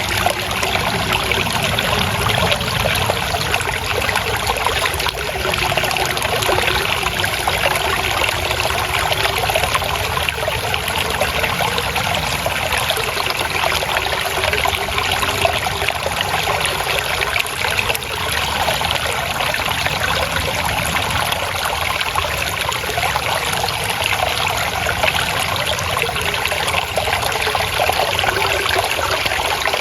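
Water flowing and trickling steadily, with a continuous splashing babble like a small stream.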